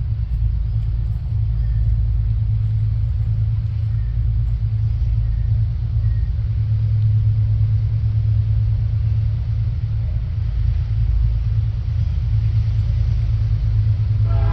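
Deep, steady rumble of an approaching diesel freight locomotive, growing slightly louder.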